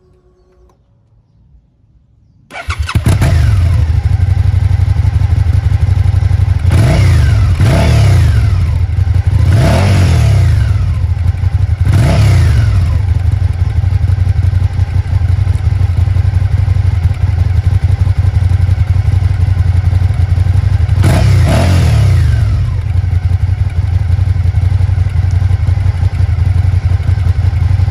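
Suzuki SFV650 Gladius's 90-degree V-twin started through its stock exhaust: it fires about two and a half seconds in and runs at a loud steady idle. It is revved in four quick blips a few seconds after starting and twice more later, each rising and falling back to idle.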